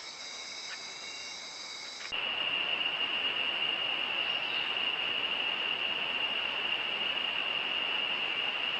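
Night insect chorus, crickets trilling steadily at several high pitches. About two seconds in it switches abruptly to louder forest ambience: a single steady high-pitched insect drone over a hiss.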